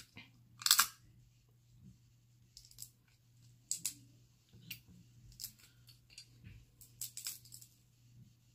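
Dungeness crab shell being cracked and picked apart by hand: irregular sharp cracks and crisp clicks of shell, the loudest about a second in, then clusters around three to four seconds and near seven seconds.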